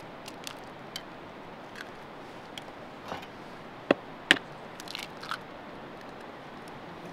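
Eggs being cracked and broken open over a plastic bowl of flour: light shell clicks, then two sharp taps about four seconds in followed by a short crackle of eggshell being pulled apart.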